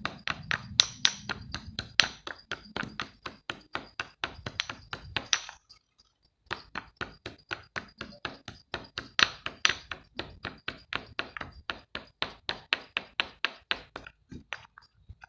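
Rapid hard taps on slate, a sharp click or knock several times a second, pausing briefly about five and a half seconds in and then carrying on.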